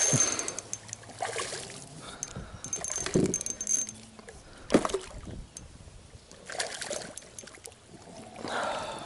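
A hooked freshwater drum thrashing and splashing at the surface against a landing net, then scattered knocks and further splashes as the net is worked in the water beside the boat.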